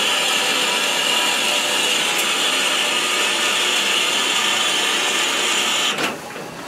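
Union Pacific Big Boy 4014 steam locomotive venting steam and water beside its running gear with a loud, steady hiss that cuts off abruptly near the end. This is water and steam being dumped onto the ground until there is enough pressure to push feedwater into the boiler.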